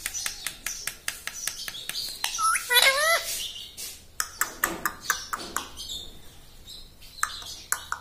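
Indian ringneck parakeet tapping its beak on a small mirror: a quick series of sharp clicks, then scattered ones. About three seconds in it gives a short call of quick gliding notes.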